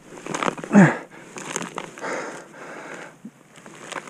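Rotten, punky wood of a fallen log cracking, splintering and crumbling as it is torn apart by hand, with a short effort grunt about a second in.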